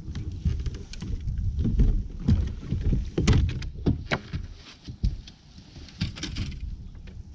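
Irregular knocks and thumps of an angler moving about and handling gear on a bass boat's front deck, over a low wind rumble on the microphone.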